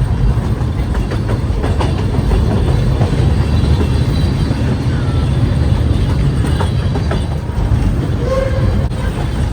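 Puffing Billy narrow-gauge steam train running along the line, heard from aboard: a steady, loud low rumble of the carriages with scattered clicks from the wheels on the rails.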